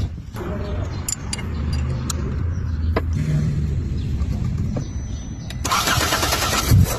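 Car engine running with a steady low hum and a few sharp clicks. A loud hiss comes in about two-thirds of the way through, with a heavy thump near the end.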